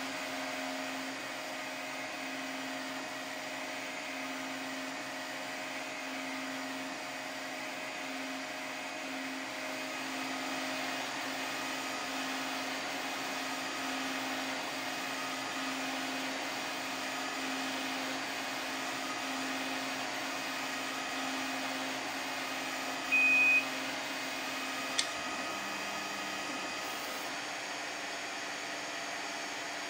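A 3D printer running: a steady whine and hum of stepper motors and fans as the print head moves. About three-quarters of the way through a short, high beep sounds, followed shortly by a single click.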